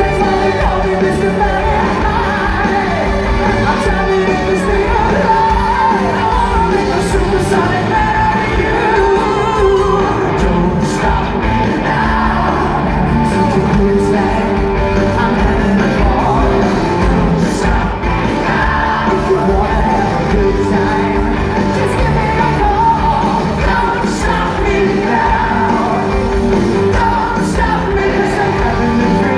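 Live rock band playing in an arena, loud and continuous, with sung voices and yells but no clear lyrics.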